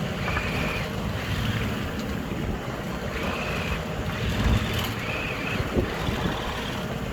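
Wind buffeting the microphone and choppy waves washing against the hull of a small sailing yacht under motor, with the engine's steady drone underneath. Three brief high squeaks come through, about half a second, three seconds and five seconds in.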